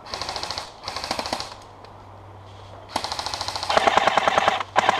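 Airsoft gun firing full-auto in rapid bursts: two short bursts, a pause of about a second and a half, then a longer, louder string of shots with a brief break near the end.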